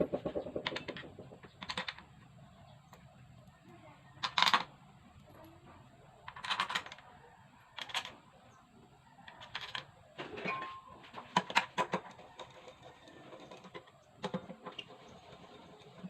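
Irregular metallic clicks and clacks of tools and engine parts being handled while a small motorcycle engine is worked on, about a dozen separate knocks spread unevenly, with a quick cluster a little after the middle.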